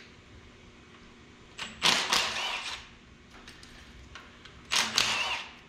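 Two short whirring bursts from a small power tool spinning out banjo bolts on the injector fuel lines, each about a second long and about three seconds apart.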